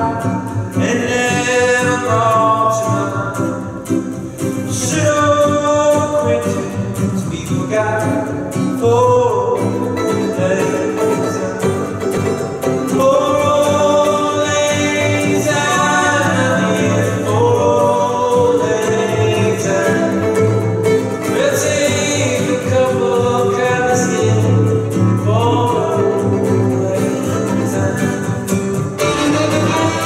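Two men singing a folk song together in harmony over a strummed acoustic-style guitar, with a violin joining in; near the end the violin is bowed, taking over the melody as the singing stops.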